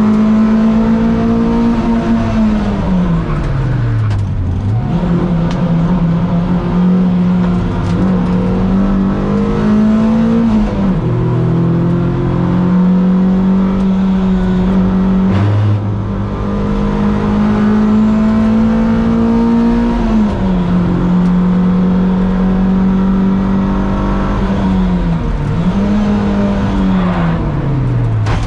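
Toyota MR2 race car's engine at racing speed, held at high revs for long stretches, with the pitch sliding down several times as the revs fall before climbing again, and a few sudden steps in pitch.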